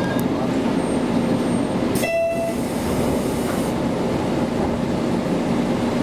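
Steady rumbling noise heard inside a JR Kyushu KiHa 200 diesel railcar, with a sharp click and a brief steady tone about two seconds in.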